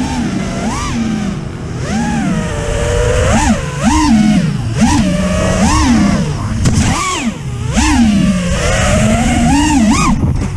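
FPV racing quadcopter's brushless motors and propellers whining, heard from on board the drone. The pitch swoops up and down about once a second as the throttle is punched and eased through the flight.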